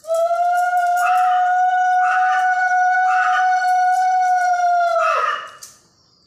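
Conch shell (shankha) blown in one long, steady note for about five seconds, sagging in pitch as the breath runs out near the end.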